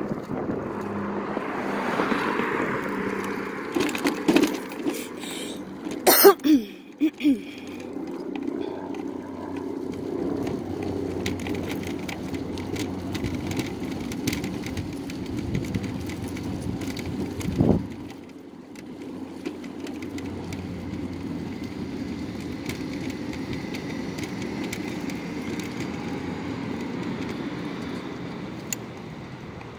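Mobility scooter rolling along a cracked, patched road: a steady rumble from its wheels and motor, with a cluster of loud knocks about six seconds in and one more a little past halfway as it jolts over the broken surface.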